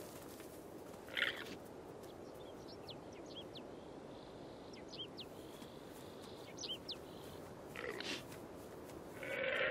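Guanaco alarm calls: a shrill, bleating call about a second in and again near the end. A few faint high chirps come in between, over a steady background hiss.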